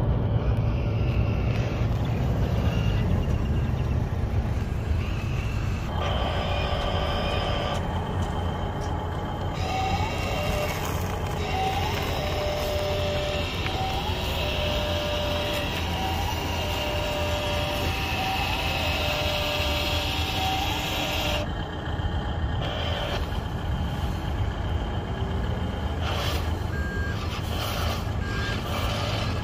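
Repeating electronic beeping like a truck's reversing alarm, short beeps about every second and a half, for about fifteen seconds in the middle, over a steady rumble of wind on the microphone. A few short high beeps follow near the end.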